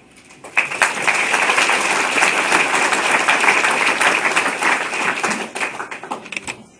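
Audience applauding: many hands clapping at once, starting about half a second in, thinning to a few scattered claps and stopping near the end.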